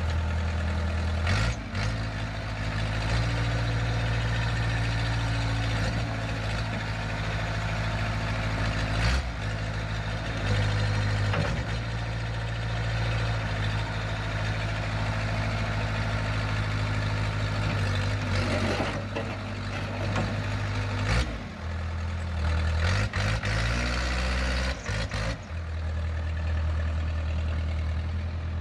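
Case 580C-CK loader backhoe's four-cylinder diesel engine running steadily, its engine speed rising and falling several times as the machine works, with a few short knocks.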